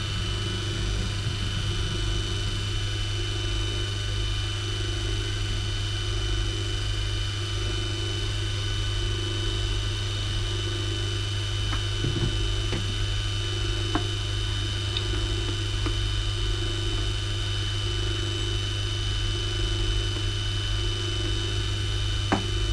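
Metal-working lathe running with its chuck spinning freely and no cut yet: a steady hum from the motor and freshly oiled headstock gears, with a thin high whine above it. A couple of faint light knocks come about halfway through.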